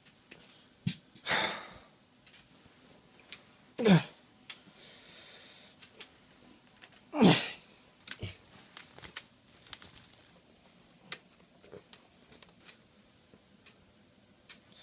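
A person's voice making short non-word sounds: a brief breathy burst, then two loud cries that fall in pitch, about three seconds apart, with light clicks and rustling between them.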